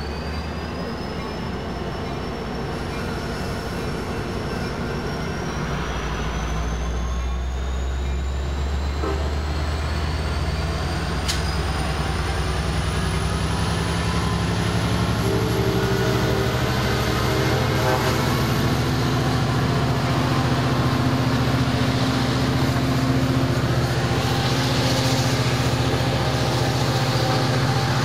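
EMD F59PHI diesel locomotive running as its push-pull commuter train pulls away, the diesel engine growing louder as it powers up. A faint high whine rises slowly in pitch throughout, and there is a single sharp click about eleven seconds in.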